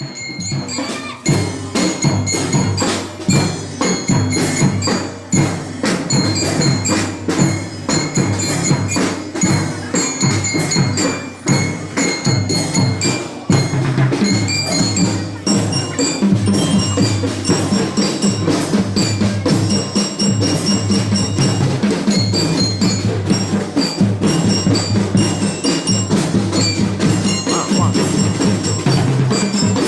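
School marching band playing: a glockenspiel (bell lyra) melody over a steady beat of drums.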